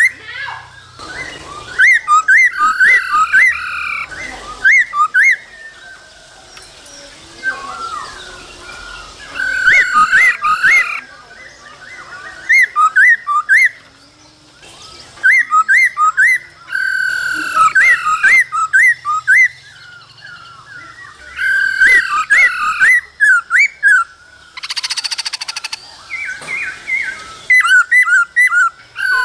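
Black-throated laughingthrush singing: loud bursts of quick, rising whistled notes, repeated many times with short pauses between, and a harsh rasping call late on.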